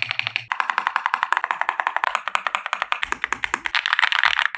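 Fast typing on a Lingbao K87 Pro mechanical keyboard fitted with Leobog Flower Feel linear switches, a PC plate and double-shot PBT keycaps. The keystrokes are rapid and even, many a second, and a little louder near the end.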